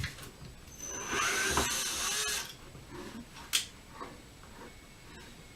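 Power drill-driver running for about a second and a half with a steady high whine as it backs out a screw, followed by a single sharp click.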